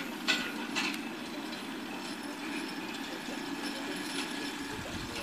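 Horse-drawn sickle-bar mower running through hay: a steady mechanical hum, with a few light clicks in the first second and another about four seconds in.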